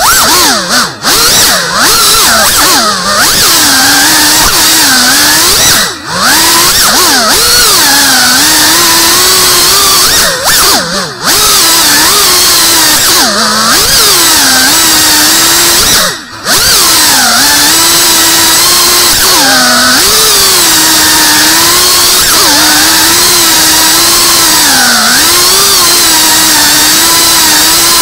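FPV racing drone's brushless motors and propellers whining loudly, the pitch rising and falling constantly with the throttle. There are several brief dips where the throttle is cut.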